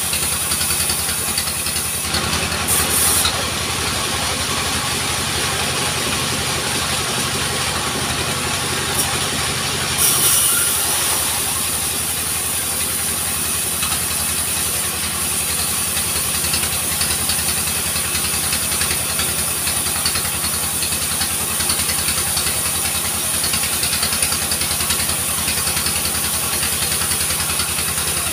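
Engine of a small portable sawmill running steadily at a constant speed, with a steady high hiss over it. There is a brief louder surge about ten seconds in.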